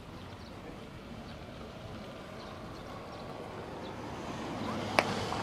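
A baseball thrown in a game of catch smacks into a leather glove once, a single sharp pop about five seconds in, over a steady outdoor background hiss.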